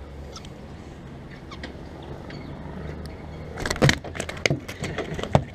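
A bowfin flopping on the dock's deck boards, a quick cluster of loud slaps and knocks about three and a half seconds in, then a few more scattered knocks.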